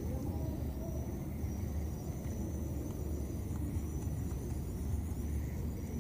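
A steady low rumble with a faint, even high-pitched pulsing over it, no distinct events.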